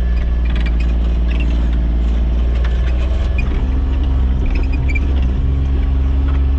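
Farm utility vehicle's engine running steadily as it drives, with a heavy low rumble; the engine note shifts a little about halfway through, and a few short high squeaks come now and then.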